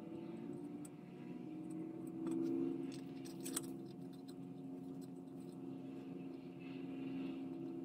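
Faint handling sounds: a few small clicks and scrapes as a hot soldering iron tip melts a plastic rod into a model display stand's base, over a steady low hum. The sharpest click comes about halfway through.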